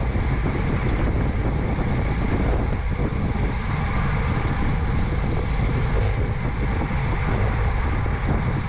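Steady wind noise buffeting the microphone of a camera on a road bike moving at about 24 mph, mixed with the rolling noise of tyres on asphalt.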